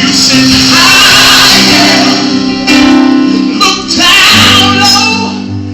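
Gospel worship music: voices holding long, wavering sung notes over steady band accompaniment.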